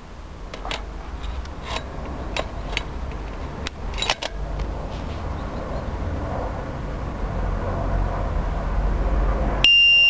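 Xena disc-lock alarm being clipped onto a motorcycle's front brake disc. A handful of sharp clicks and knocks come over a low rumble, then near the end comes one loud, high, steady beep of about half a second as the alarm arms.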